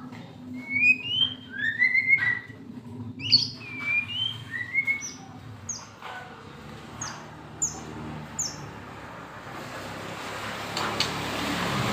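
White-rumped shama singing short whistled, slurred phrases, then a run of four or five short, high, falling notes. From about two-thirds of the way through, a steady rumble of passing traffic rises and covers the song.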